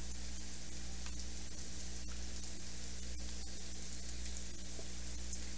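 Sliced onions sizzling in oil in a cast-iron skillet on a gas stove: a steady soft hiss with a few faint crackles, over a low steady hum.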